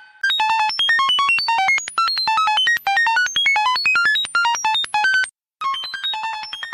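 A rapid run of short synthesized electronic beeps, each at a different pitch jumping up and down, like computer data-processing chatter. It breaks off briefly about five seconds in, then picks up again.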